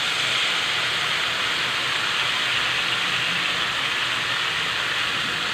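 Sliced onions, carrots and green chillies sizzling in hot oil in a wok, a steady even hiss, with soy sauce just poured in.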